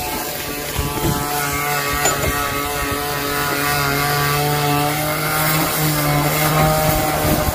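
Handheld electric power sander running against a boat hull, sanding off bottom paint: a steady motor hum whose pitch shifts slightly near the end.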